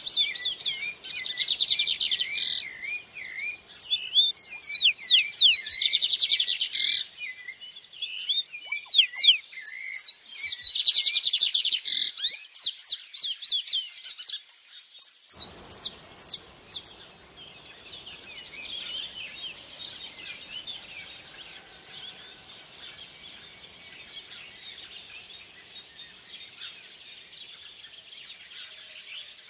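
Songbirds singing in long, rapid phrases of chirps and gliding whistles, with short pauses between phrases. About halfway through the sound changes suddenly to a quieter, steady rush of running stream water with faint, distant bird chatter.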